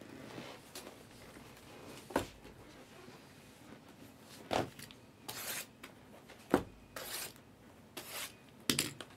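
Shrink-wrapped cardboard hobby boxes of trading cards being handled and set down on a table: a few sharp knocks, the loudest about two-thirds of the way in, between short rasps of cardboard and plastic sliding. Near the end a box cutter scrapes over the wrap of one box.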